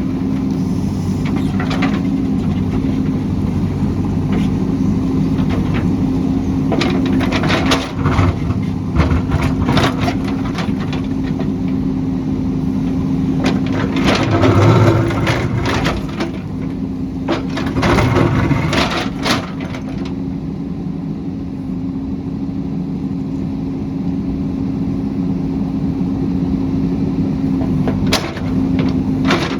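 JCB backhoe loader's diesel engine running steadily, with repeated cracks and clatters from the digging, thickest in the middle stretch and again near the end, where the engine briefly swells under load.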